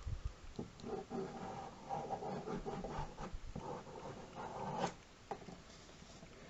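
Pen scratching and rubbing across sketchbook paper in short irregular strokes, inking a drawing.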